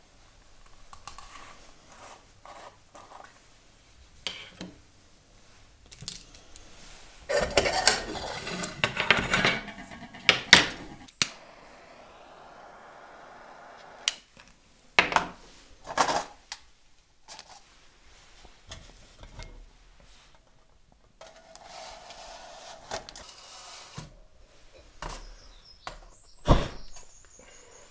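Small hard objects being handled: irregular clinks, knocks and clatter, with a denser stretch of clatter and rustling about eight seconds in.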